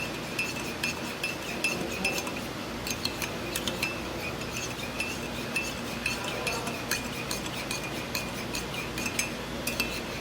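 A spoon stirring a liquid mixture, clinking against the side of the container over and over at an uneven pace, each clink with a short ring.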